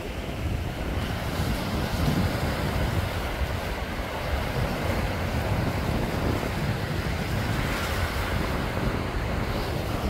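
Small surf washing up the beach in a steady rush, with wind buffeting the microphone in a deep, uneven rumble.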